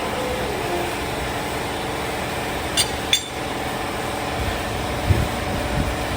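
An engine idling steadily in the background, with two sharp metallic clicks about a third of a second apart near the middle and a couple of dull low knocks later on.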